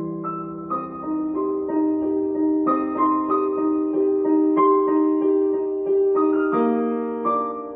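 Background piano music: a gentle melody of held notes that change about every half second.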